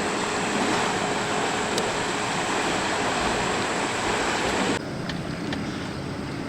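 Boat under way on the lake: a steady rush of wind and water noise, which drops abruptly to a quieter background about five seconds in.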